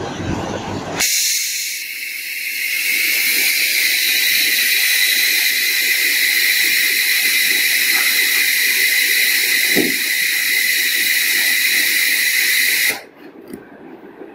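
Compressed-air cooling blowing on the hot pulse-heat head of an ACF bonding machine after the bond: a loud, steady, high hiss that starts about a second in and cuts off suddenly near the end.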